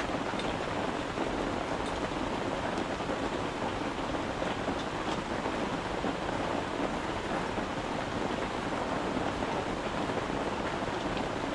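Steady rain falling on a tent, heard from inside: an even hiss with a few separate drops ticking now and then.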